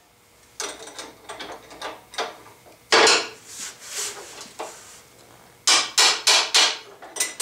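Metal parts clanking and knocking as they are handled on a drill press's steel table. There are scattered knocks in the first few seconds, the loudest about three seconds in, then a quick run of about five clanks near the end.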